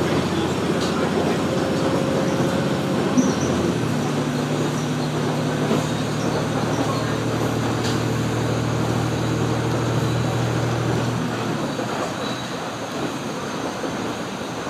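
Interior running noise of a KiHa 47 diesel railcar: the diesel engine under way over a steady rumble of wheels on rail, with a few sharp clicks from the track. The engine note shifts about four seconds in, then falls away about eleven seconds in, leaving mostly the rolling rumble and a slightly lower level.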